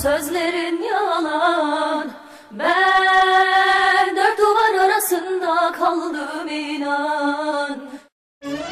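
A solo singing voice holding long, wavering, ornamented notes over sparse accompaniment. It drops away briefly about two seconds in, then resumes and stops abruptly just before the end.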